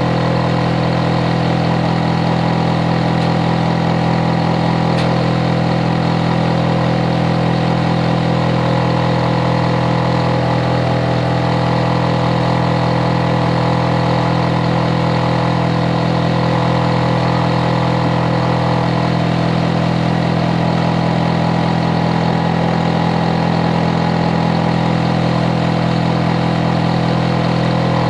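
Hitachi air conditioner outdoor unit running steadily: a constant hum made of several steady low tones with fan noise over them, unchanging throughout.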